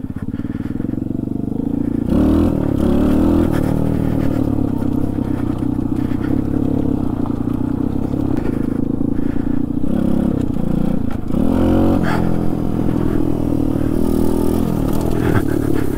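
Trailmaster TM29 pit bike's small four-stroke engine running while the bike is ridden. The revs rise and fall a few times, with some brief clatter.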